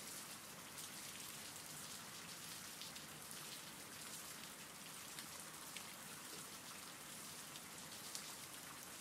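Faint, steady rain falling, a recorded rain ambience with scattered light drop ticks.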